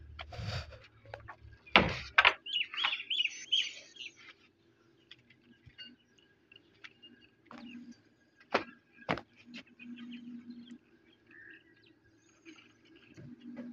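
Sharp metallic knocks, two pairs each about half a second apart, from hand work on an old stationary diesel engine, over a faint steady hum. Birds chirp between the first pair and the second.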